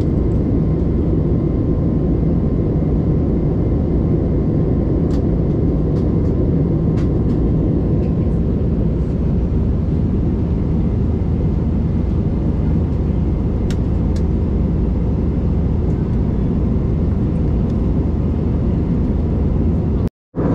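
Airbus A320neo cabin noise in flight: a steady, low engine and airflow roar with a faint steady tone above it. The sound cuts out briefly near the end.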